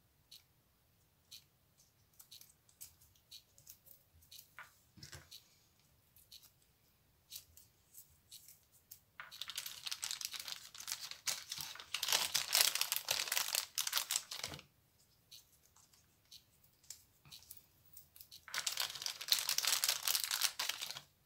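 Small clear plastic bag crinkling and rustling while finger cots are pulled out and rolled onto fingers. First come scattered small clicks and rustles, then a long spell of loud crinkling about halfway through and a second one near the end.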